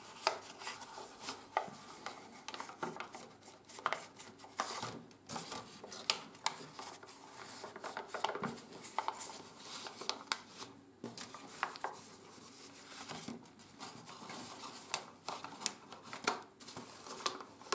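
A sheet of 80 g/m² office paper rustling and crackling as fingers fold and tuck in the edges of a paper origami boat, in irregular short crackles throughout.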